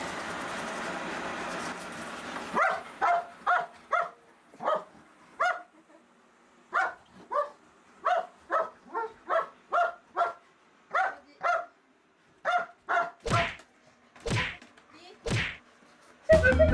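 A robot vacuum's motor runs with a steady drone for the first couple of seconds, then a large White Swiss Shepherd gives a long string of short, sharp barks at it, about one to two a second, the last three longer and louder.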